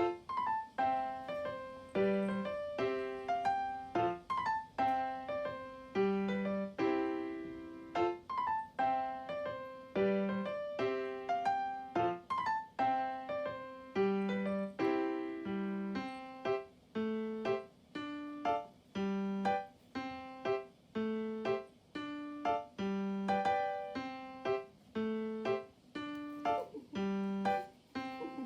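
Background music: a light, bouncy piano tune with a steady beat.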